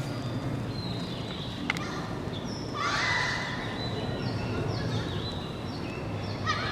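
Electronic car alarm siren sounding, cycling through patterns: a steady high tone, a rising sweep about three seconds in, then repeated falling chirps and a fast warble near the end. A sharp click comes a little before two seconds.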